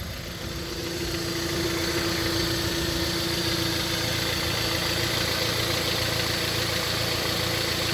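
Kia Koup's engine idling steadily while it warms up, with its fresh engine oil just filled.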